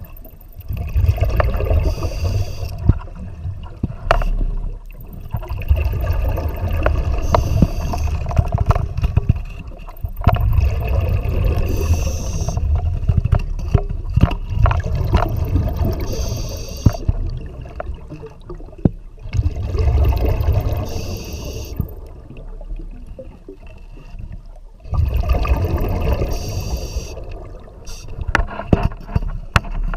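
Scuba diver breathing through a regulator underwater: long rumbling bursts of exhaled bubbles every few seconds, alternating with short hissing inhalations through the regulator. Scattered sharp knocks and scrapes of gear against rock come through the water.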